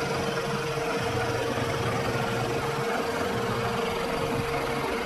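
Milling machine running with a steady whine, taking a cut on a cast two-stroke engine crankcase.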